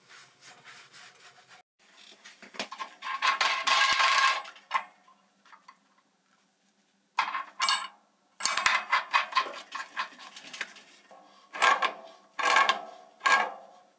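Tongue-and-groove pliers working the brass union nut on a copper water-heater pipe: metal clinking and scraping with a ringing note, in several bursts, after a faint rustle of a rag wiped over the pipe at the start.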